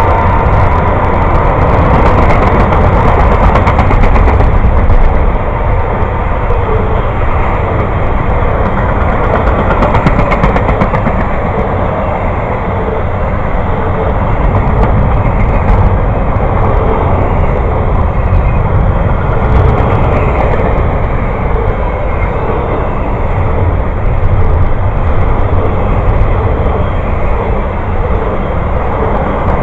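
A train passing at close range: a loud, steady rumble of its cars rolling along the track.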